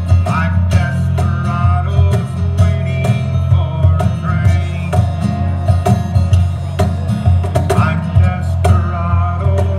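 Acoustic guitar playing a country song live, with a Meinl cajón tapped along to keep the beat.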